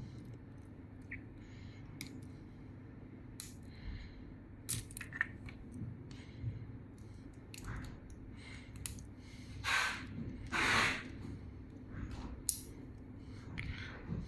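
Scattered small clicks and handling noises as an ESC250D fibre-optic fast connector is unlocked and taken apart, with two short rustling bursts about ten seconds in.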